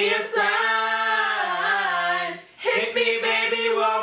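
A small group of voices singing a cappella, holding one long note that dips slightly in pitch, breaking off briefly about two and a half seconds in before the singing picks up again.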